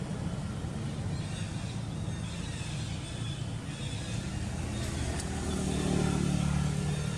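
A low, steady motor rumble, swelling louder about six seconds in.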